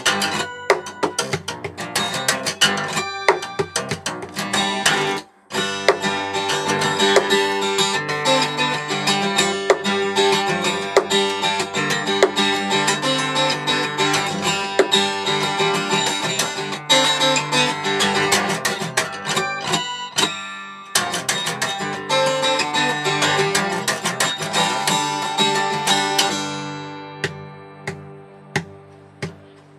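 S.Yairi YD-42 steel-string acoustic guitar played solo fingerstyle, heard unamplified: a fast, dense passage of plucked notes with sharp accents, broken by a sudden brief stop about five seconds in. Near the end the playing thins to a few single notes left ringing and fading.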